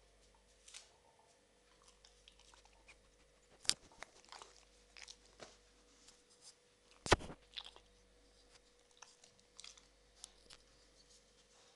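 Newfoundland puppy crunching dry kibble it has worked out of a rubber Kong toy, with scattered small clicks and two sharp knocks, the louder one about seven seconds in.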